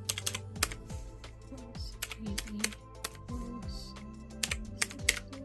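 Calculator keys being tapped in quick, irregular presses while sums are entered, over background music.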